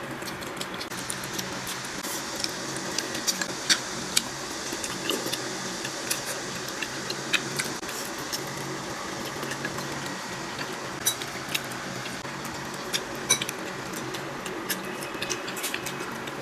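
Light clicks and clinks of small hard objects, irregular and at times several a second, over a steady hiss.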